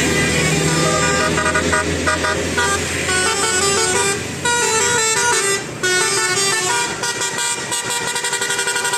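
Bus's basuri "telolet" multi-tone musical horn playing a tune of quick stepped notes over the low hum of the bus engine. The tune breaks off briefly twice around the middle and turns to a rapid stutter near the end.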